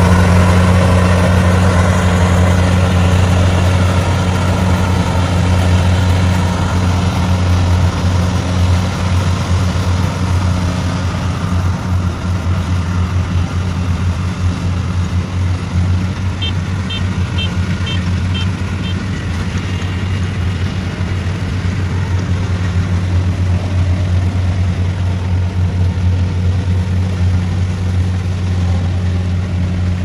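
Tracked rice combine harvester's diesel engine running steadily as it harvests, a continuous low hum with the rattle of the machine above it.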